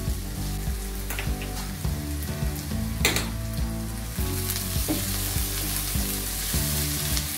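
Chopped onions, green chilies and curry leaves sizzling in hot oil in a nonstick kadai while being stirred and sautéed with a spatula. A few scrapes of the spatula against the pan cut through the sizzle, the sharpest about three seconds in.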